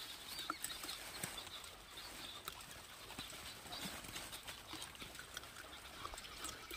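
Faint rustling of leafy greens with scattered small clicks, as gray langurs take leaves from a hand and eat them.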